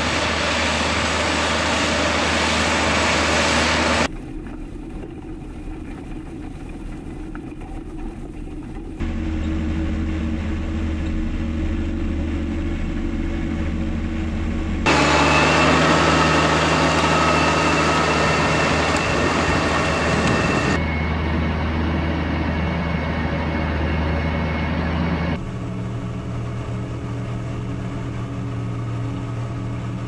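Claas Challenger 95E rubber-tracked tractor's diesel engine working steadily under load as it pulls a nine-furrow plough. The drone changes suddenly in loudness and pitch several times as the shots change.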